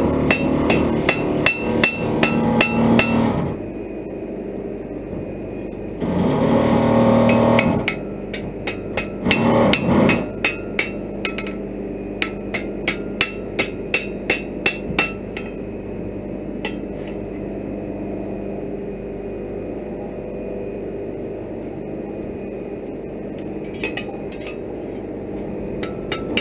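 Blacksmith's hammer striking an iron bar on the anvil, with sharp ringing blows: a fast run of strikes for the first few seconds, then a slower run of about nine blows in the middle, and a few more near the end. In between are two louder bursts of noise and a steady background noise.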